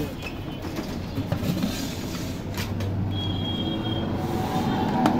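Street traffic noise, with a vehicle engine running close by, and a couple of sharp clinks.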